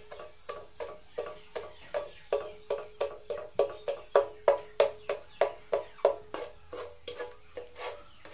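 Wooden spatula stirring and scraping melted, caramelizing sugar in a square pan, in even strokes about three a second, each stroke giving a short scraping squeak. The strokes are loudest around the middle.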